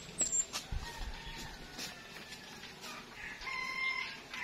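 A rooster crowing with a held call near the end, over scattered light clicks and taps.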